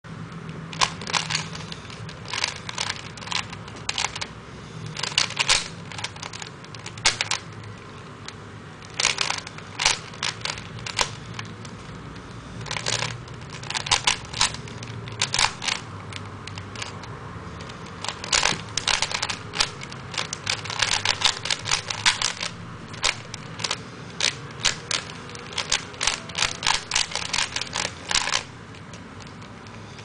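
A 3x3 Rubik's Cube being turned by hand: runs of rapid plastic clicks and clacks as the layers snap round, with short pauses between runs, stopping a couple of seconds before the end.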